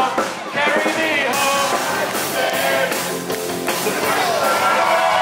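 Live rock-and-roll band playing with a man singing lead into a microphone.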